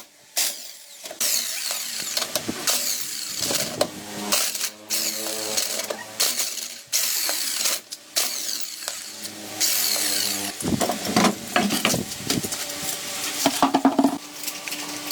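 A run of short power-tool clips cut one after another, each a motor running with a steady whine, with harsher scraping and grinding stretches in between.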